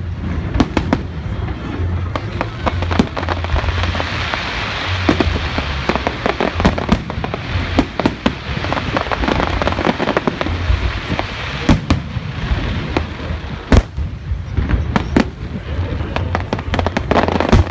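Aerial firework shells bursting in quick succession: many sharp bangs over dense crackling, with the crackle thickest in the middle and a few of the strongest bangs later on.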